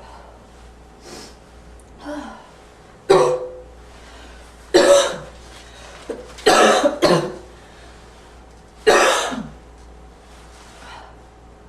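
A person coughing repeatedly with a slight, wheezy barking cough. About five loud coughs come a second or two apart, two of them in quick succession midway, with fainter coughs before and after.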